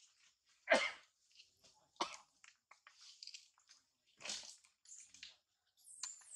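Short, irregular rustling and scratching as a mother monkey moves her hands and body in leaves and grass, the loudest about a second in.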